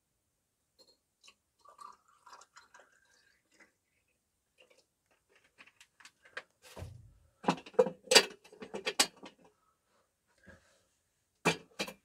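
Objects knocking and clattering: scattered faint clicks at first, then a dull thump and a quick run of louder knocks and clatters a little past the middle, and two more sharp knocks near the end.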